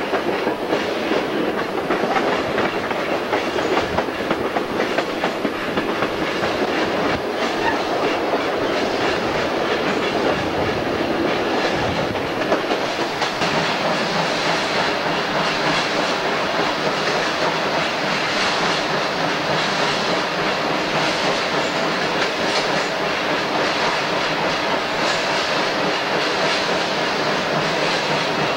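Arkansas & Missouri Railroad train rolling along, heard from aboard: steady wheel-on-rail noise with the wheels clicking over rail joints, the sound evening out about halfway through.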